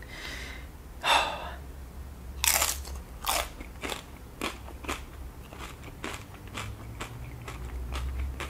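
Close-up biting and chewing of tortilla chips topped with cheese sauce. Loud crunches come about one second in and again around two and a half and three seconds in, followed by a run of smaller chewing crunches, about two a second.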